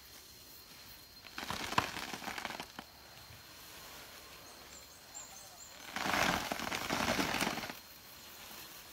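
Two bursts of rustling and crackling from an elephant shaking a coconut palm with its trunk, the fronds thrashing: the first about a second and a half in, the second, louder and longer, about six seconds in.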